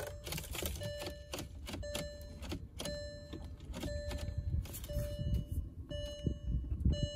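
Bentley coupe's interior warning chime, a short pitched tone repeating about once a second, with sharp clicks of buttons and controls being pressed in the cabin. It sounds while the push-button start is tried with the brake held and the engine does not crank.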